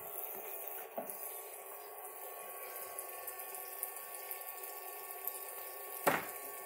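Toy play sink's faucet running a thin stream of water into a soapy basin, with the steady whine of its small recirculating pump and water splashing as a macaque handles dishes in it. A small knock about a second in and a louder sharp knock about six seconds in.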